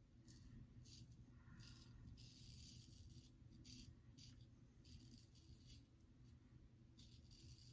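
Faint, short scraping strokes of a GEM Pushbutton single-edge safety razor cutting two days' stubble through lather, coming in quick, uneven succession with a longer scrape about two seconds in.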